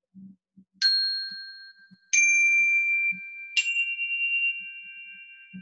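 Three strikes of small metal chimes hit with a mallet, each at a different pitch, about a second, two seconds and three and a half seconds in, every tone ringing on and overlapping the next. They are sounded to mark a moment of silence.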